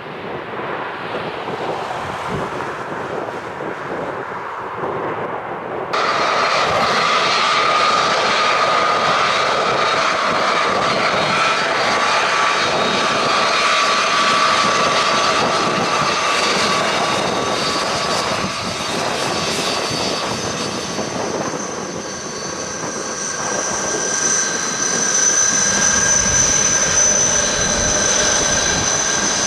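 Jet airliner engines running close by, a steady roar with whining tones. The sound jumps abruptly louder about six seconds in, and a high-pitched whine grows stronger near the end.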